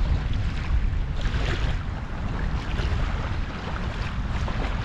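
Wind buffeting the microphone in a low, uneven rumble, over the hiss and patter of heavy rain.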